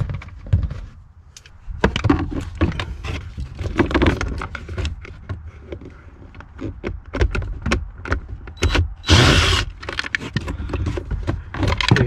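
Knocks, clicks and rattles of hands and a cordless driver working on the screws that hold the front HVAC blower motor under the dashboard, with a brief, louder burst of noise about nine seconds in.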